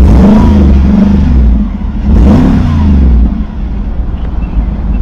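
McLaren 570S twin-turbo V8 engine note rising and falling twice, each swell about a second and a half long, over a steady low engine drone.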